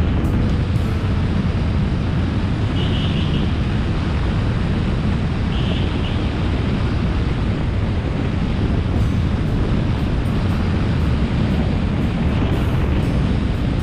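Steady wind rush on an action camera's microphone during a road ride, with the low running noise of the vehicle and tyres underneath. Two brief high chirps come about three seconds apart.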